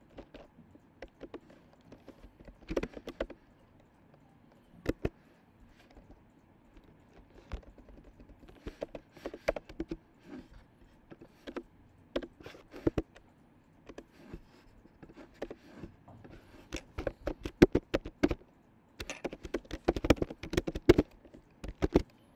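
Typing on a computer keyboard: irregular keystrokes in short runs with pauses between, busiest in the last few seconds.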